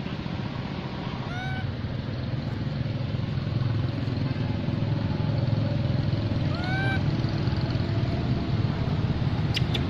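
Two short arched calls from a macaque, one about a second in and another about seven seconds in, over a steady low rumble that grows gradually louder.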